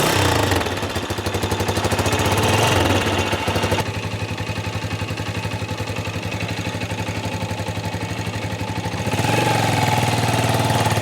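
CrossMax 170 motorcycle's carbureted engine running just after starting: revved lightly for the first few seconds, settling to a steady idle, then revved up again near the end. It does not sound bad, but it is not an imposing sound.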